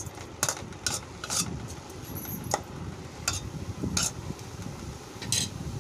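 Metal spoon stirring and scraping cauliflower and masala in a metal kadai, with a short clink or scrape against the pan every half second to a second, over a low sizzle as it sautés.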